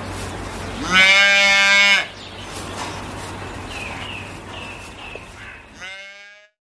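Holstein calf bawling: one loud call lasting about a second, starting about a second in, and a second, fainter call near the end.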